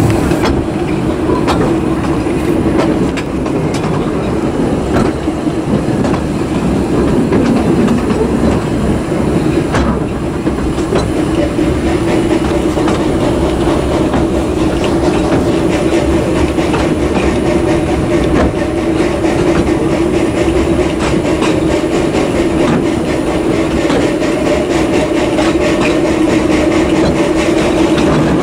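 Narrow-gauge train running steadily, with a continuous rumble and irregular clicks of wheels over rail joints.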